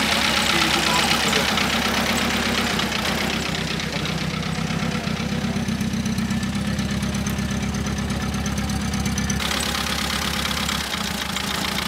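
Ford Y's small four-cylinder engine idling steadily, its note changing a little near the end.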